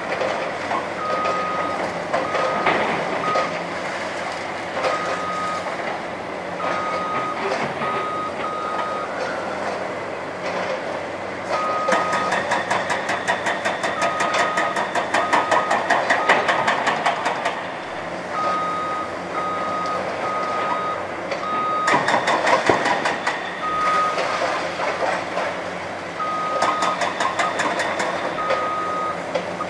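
A heavy-equipment backup alarm beeps in irregular runs over the running diesel engines of demolition machinery. Through the middle there are stretches of clattering and crunching as concrete rubble is worked.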